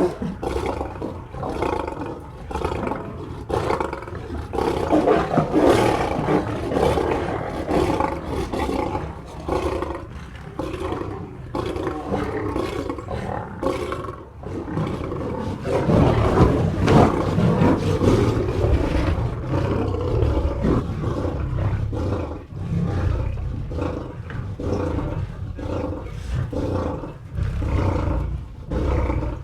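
A run of big-cat roar sound effects, one roar after another with brief dips between them, loudest from about halfway through.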